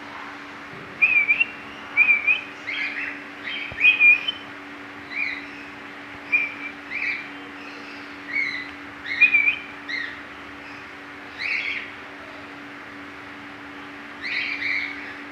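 Cockatiels calling: short, repeated whistled chirps, coming in irregular clusters, busiest in the first few seconds.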